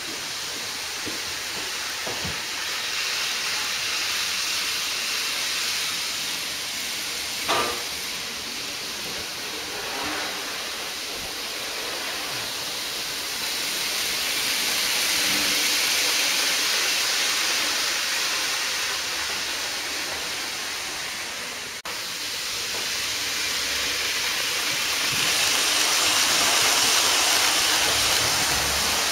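N-gauge model Shinkansen trains running on the layout: a steady hissing whir of small motors and wheels on rail, swelling twice as trains pass close. A single click about seven and a half seconds in.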